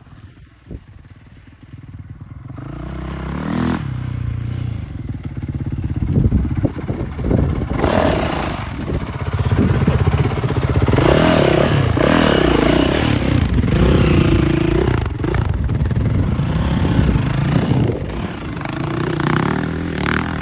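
Yamaha YZF four-stroke dirt bike engine under way, revving up and down as the rider accelerates and eases off. It is quiet for the first couple of seconds, then grows loud about two and a half seconds in.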